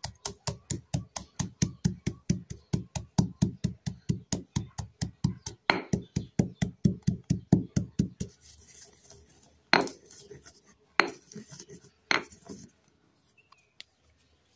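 Stone pestle pounding roasted peanuts in a stone mortar: rapid, even strokes about five a second, crushing the nuts fine. The pounding stops about eight seconds in, followed by a few separate knocks.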